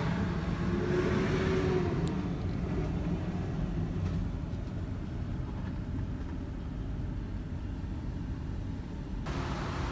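A car running with a steady low rumble, which changes abruptly about nine seconds in.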